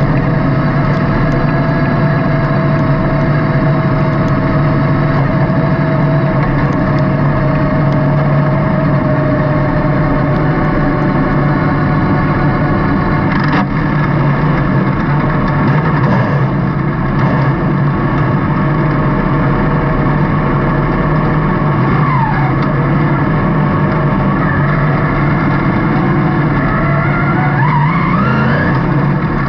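Dirt-track race car's engine running hard on a dirt oval, heard from inside the car: a loud, steady engine note. Its pitch falls and rises again a few times near the end as the driver lifts off and gets back on the throttle through the turns.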